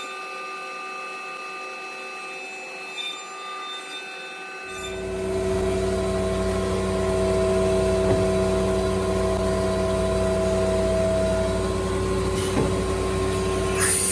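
CNC router cutting bamboo butcher block, a steady whine of several high tones. About five seconds in, a louder steady machine hum with a deep rumble suddenly takes over. A short burst of hiss comes near the end.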